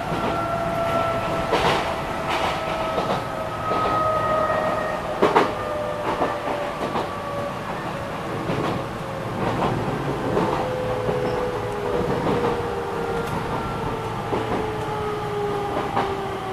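Enshu Railway 2000-series electric train (car 2007) running on the line, heard from the cab: a rumble with irregular clicks of the wheels over rail joints, and a motor whine that slides slowly down in pitch as the train slows.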